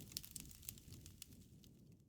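Wood fire crackling faintly: scattered sharp snaps and pops over a low, steady rumble of burning.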